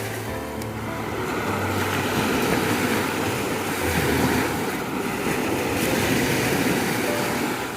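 Ocean waves breaking and washing on a beach, a continuous surf hiss that swells and eases every couple of seconds.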